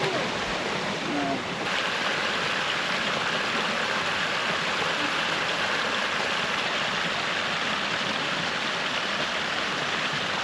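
Steady rush of flowing water from a stream, getting brighter and hissier about two seconds in.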